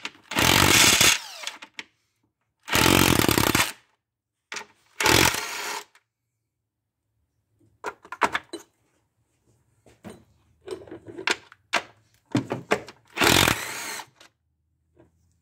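Cordless drill with a 10 mm socket running in four short bursts of about a second, spinning out the bolts of the Ford 4.2 L V6's upper intake plenum. Between the bursts come scattered clicks and rattles.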